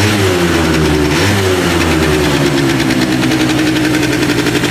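Kymco MXU-50 quad's small single-cylinder engine, freshly rebuilt with a new cylinder and piston. It is blipped on the throttle twice, near the start and about a second in, then settles to a steady idle, responding at once and running nicely.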